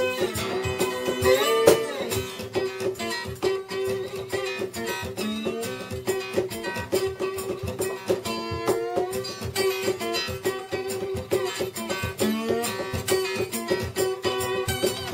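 Acoustic guitar played solo in a blues instrumental break: single plucked notes over a held, ringing drone note, with notes gliding in pitch about a second and a half in and again around eight seconds.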